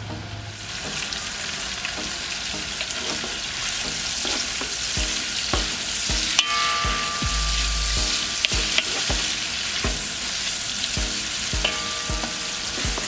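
Onion, carrot and red pepper strips sizzling in oil in a large metal pot as they are sautéed to soften, stirred with a wooden spoon that knocks and scrapes against the pot.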